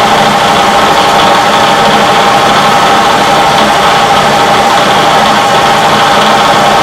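Machine tool running steadily: a loud, even motor hum with a constant whine, no change in speed.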